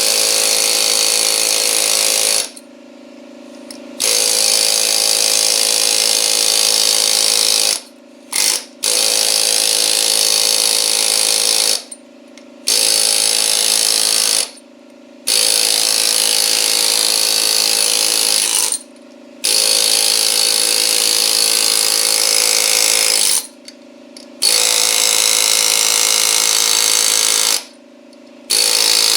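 Pneumatic air hammer with a flat chisel running in repeated bursts of two to four seconds, with short pauses between, as it is driven around the rim to break a mower tire's bead loose.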